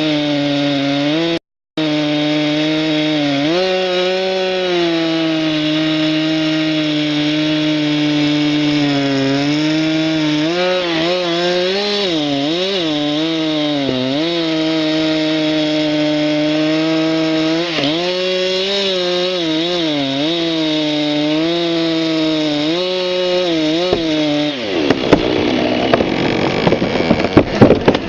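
Two-stroke chainsaw running at high revs in a cut, its pitch dipping repeatedly as the bar loads up in the wood. About 25 s in, the engine note gives way to loud crackling with irregular sharp snaps.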